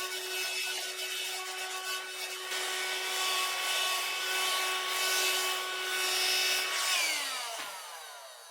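Parkside PHSSA 20-Li C1 20 V cordless hand-held vacuum cleaner running, its motor giving a steady whine over rushing suction noise, with extra scraping or rubbing noise in the middle. About seven seconds in it is switched off, and the whine falls in pitch as the motor spins down.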